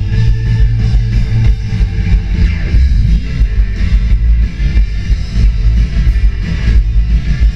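Rock band playing live and loud: electric guitars over bass and a drum kit beating steadily.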